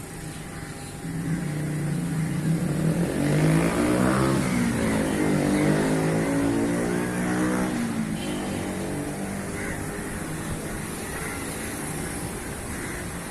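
A road vehicle drives past, its engine growing louder over a few seconds with its pitch bending, then fading away.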